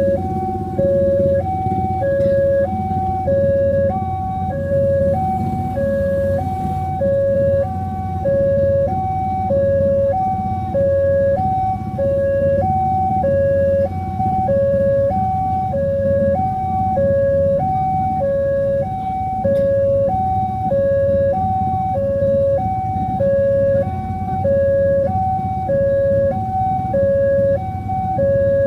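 Indonesian railway level-crossing warning alarm: an electronic two-tone signal alternating steadily between a lower and a higher note, each held about a second, over a low rumble.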